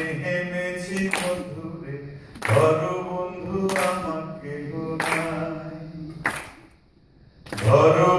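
A man singing unaccompanied into a microphone, in long held notes. He breaks off briefly about seven seconds in, then starts the next line.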